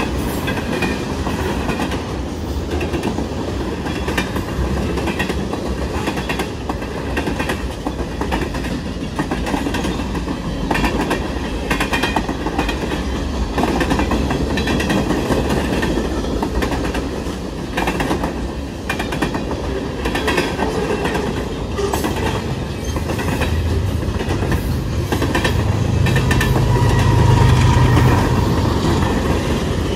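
Train running along the track, its wheels clicking over rail joints over a continuous rumble, with a low hum swelling near the end.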